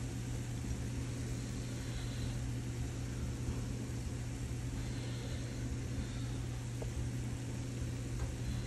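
A steady low hum with an even hiss over it, unchanging throughout: a fan or appliance motor running.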